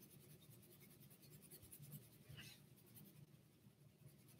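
Near silence, with faint scratching of a colored pencil shading on paper.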